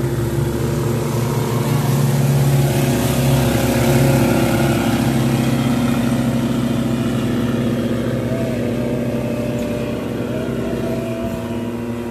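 Engines of a fiberglass water-jet boat running at speed as it passes, with a steady engine note over the rush of water. The sound is loudest a few seconds in, then eases off as the boat moves away.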